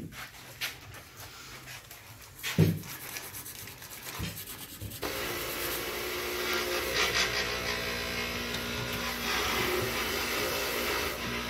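Shop sounds of metal suspension work: a few light knocks and one loud clunk about two and a half seconds in. From about five seconds in comes a steadier rubbing, scraping noise of metal steering-linkage parts, tie rod ends and adjusting sleeves, being handled and threaded together on a cloth-covered bench.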